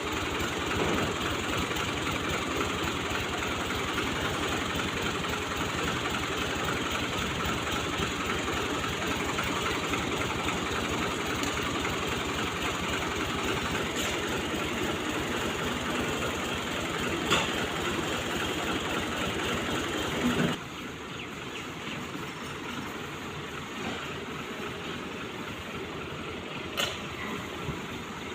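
Machinery running steadily, with a low, fast pulsing rumble. It drops in level suddenly about twenty seconds in, and a few short clicks sound over it.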